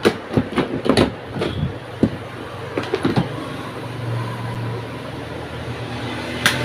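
A quick run of clicks and knocks as the home theater unit is handled and switched on, followed by a low steady hum.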